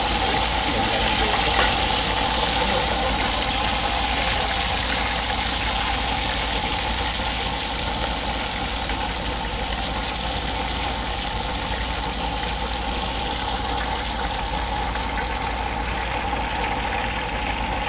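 Whole tilapia deep-frying in hot oil in a pan: a steady sizzle, easing slightly about halfway through.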